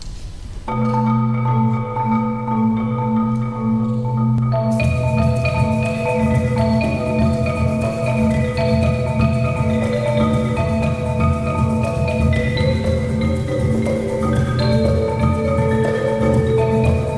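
Marimbas played by a percussion ensemble: fast, steadily pulsing repeated mallet notes in several interlocking parts. The music starts just under a second in and grows fuller and brighter about five seconds in as more parts join.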